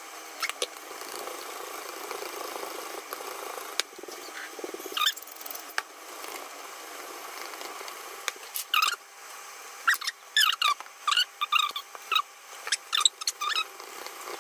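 Wire whisk scraping and squeaking against the bottom of a stainless steel saucepan as a sauce is whisked. It gives clusters of short high squeaks, a few about five seconds in and many in quick succession in the second half.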